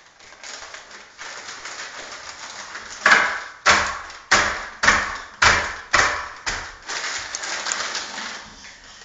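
A toddler banging on a small wooden tabletop with a plastic toy and her hand: about seven sharp knocks, roughly two a second, starting about three seconds in, after some softer shuffling on the table.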